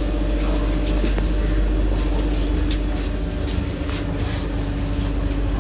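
Steady hum and low rumble inside a Berlin U-Bahn H-series train standing at a platform with its doors open, with a few light clicks and knocks.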